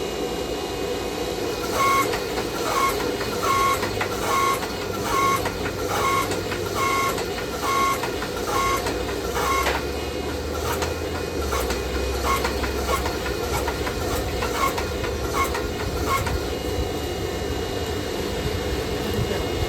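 Hand hammer striking hot knife steel on an anvil, a steady rhythm of a little over one blow a second for about fourteen seconds, each blow with a bright ring that grows weaker in the second half. A steady running noise from the forge lies underneath.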